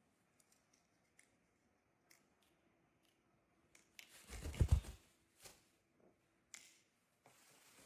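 Scattered light clicks and scratching, with a louder rustling thud about four to five seconds in.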